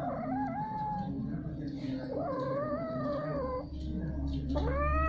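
Cat caterwauling while mating: three long, drawn-out yowls, the last one sweeping up in pitch at its start.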